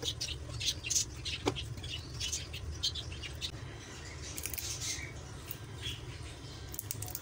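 Fresh spinach leaves being plucked from their stems by hand: irregular crisp crackling and snapping of leaves and stalks, thicker in the first few seconds, over a steady low hum.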